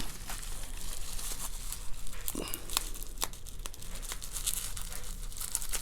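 Packaging being crinkled and torn open by hand, a steady rustle of wrapping with many small sharp clicks and crackles.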